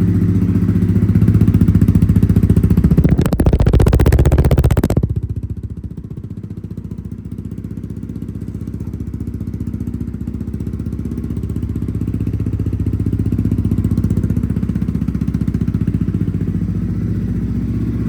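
Honda CRF250F's single-cylinder four-stroke engine running, held at higher revs for the first few seconds, then dropping back to a steady idle about five seconds in.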